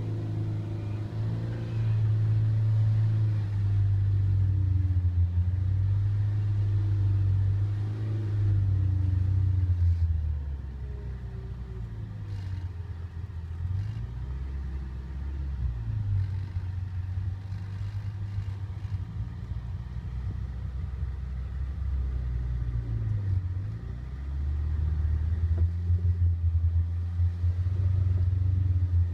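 Off-road 4x4's engine running low and steady, heard from inside the cab. It eases off for a stretch midway, then grows louder again in the last few seconds as the vehicle starts up a steep slickrock face under load.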